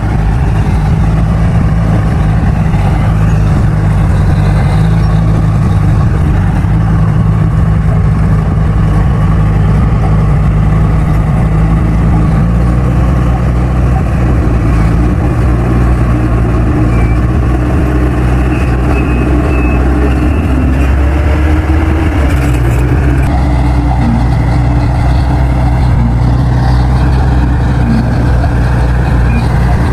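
Crawler bulldozer's diesel engine running steadily and loud while working soil, its pitch shifting slightly about twelve seconds in and again about twenty-three seconds in as the load changes.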